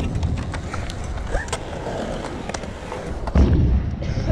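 Stunt scooter wheels and deck rolling and clattering on a skatepark ramp, with scattered clicks and knocks and a louder rumble about three and a half seconds in.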